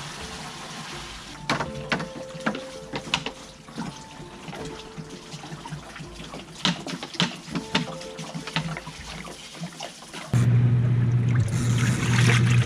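Water poured from a bucket and then a large plastic bottle into the tub of a twin-tub washing machine, with sharp plastic clicks and knocks. About ten seconds in, the machine's wash motor starts with a loud, steady low hum.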